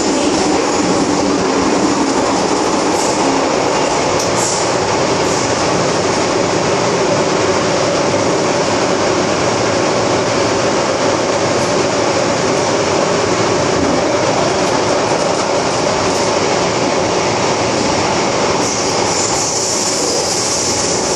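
MTR Tsuen Wan Line M-Train (Metro-Cammell electric multiple unit) running between stations, heard from inside the car: a steady rumble and rail noise with a few light clicks from the wheels over the track. Near the end a high hiss grows louder.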